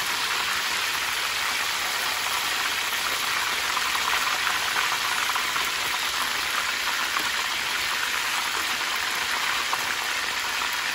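Whole tilapia deep-frying in hot oil in a metal roasting pan: a steady, dense crackling sizzle.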